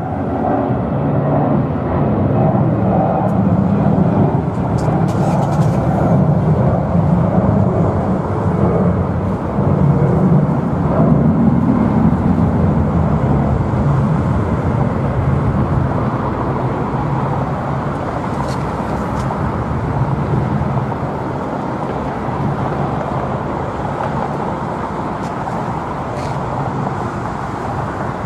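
Jet engines of a Boeing 737 airliner on its landing rollout: a steady, loud low rumble that swells in the first seconds after touchdown and then slowly fades as the plane slows.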